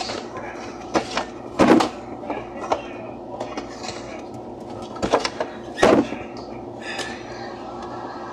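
Items being moved about in a refrigerator: a series of knocks and clunks, with two louder ones about two and six seconds in, over a steady hum.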